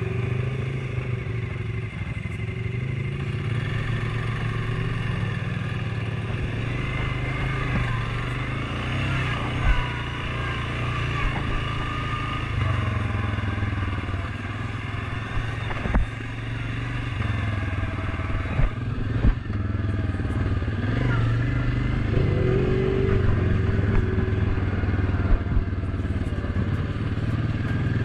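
ATV engine running steadily while riding a trail, its pitch rising and falling a little with the throttle, with a few short sharp knocks and clatter.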